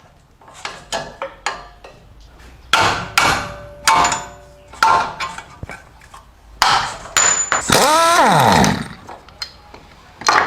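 Metal tools clanking and knocking against the car's front shock absorber mount while it is being unbolted. About eight seconds in a power tool runs for about a second, its whine falling steeply as it winds down.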